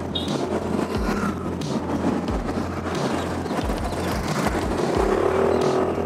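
Riding noise from a Suzuki Burgman Street 125 scooter on the move: wind rushing and buffeting over the microphone over the drone of its 125 cc engine. A steadier pitched drone comes up about five seconds in.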